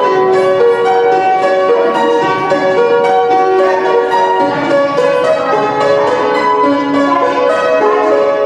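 Instrumental music: a melody of short, separate notes at a steady level.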